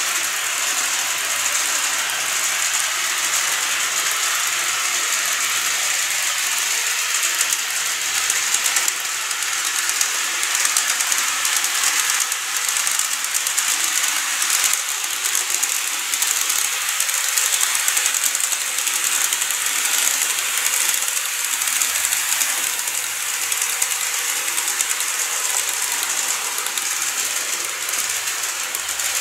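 Model electric trains running on the track: a steady, high-pitched mechanical rattle of small wheels and motors, with a fine rapid ticking throughout.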